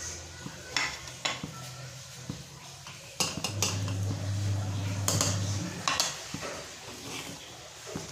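A metal spoon and ladle stirring thick kadhi in a metal cooking pot, clinking and scraping against the pot's sides and rim with a string of sharp knocks.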